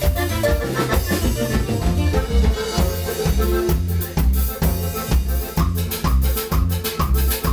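Live Latin dance music from a band played through a PA, with a twelve-string guitar, bass and drums keeping a steady pulsing beat.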